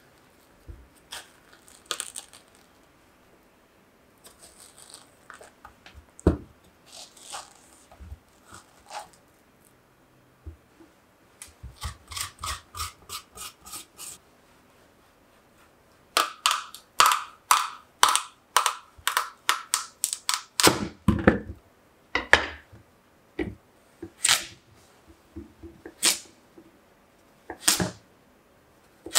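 A metal spoon scraping the seeds and pulp out of a halved kabocha squash in quick runs of strokes, then a kitchen knife chopping through the hard kabocha onto a wooden cutting board, single crunching cuts about every two seconds.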